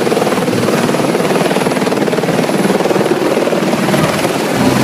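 A helicopter hovering close by, loud and steady, its rotor beating in a fast, even chop.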